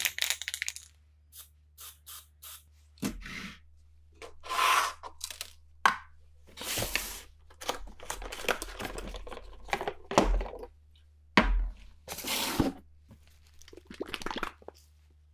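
Cardboard box and packaging being handled and opened by gloved hands: an irregular run of short scrapes and rustles with a few sharp knocks as things are set down on a tabletop.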